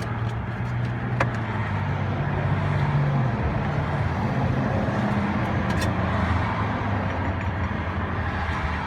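A motor vehicle engine running, its pitch drifting up and down a little, with a couple of faint clicks.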